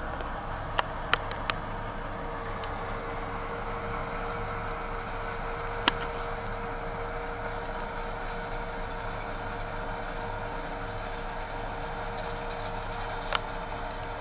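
Steady vehicle engine drone with a constant mid-pitched hum, heard from inside a car. A few sharp clicks cut through it: three close together about a second in, the loudest near six seconds, and one more near the end.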